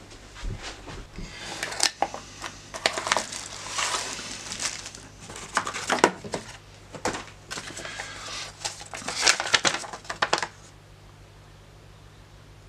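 Crinkling and rustling of plastic wrap and cardboard packaging being handled, with many sharp clicks and taps. It stops about ten seconds in, leaving quiet room tone with a low hum. A low thump comes just after the start.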